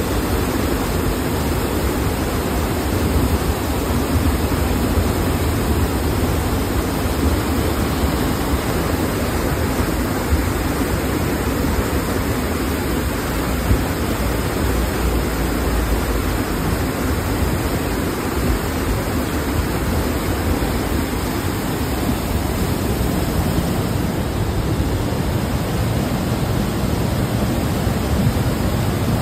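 The Beas river in flood, a fast, muddy torrent, rushing steadily and loudly, heaviest in the low range.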